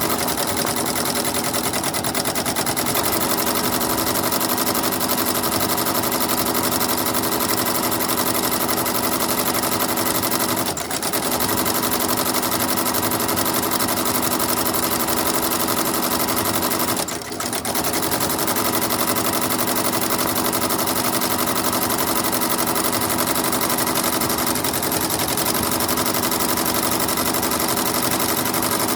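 Janome MB-7 seven-needle embroidery machine stitching steadily at speed, a fast continuous needle clatter that drops out briefly twice.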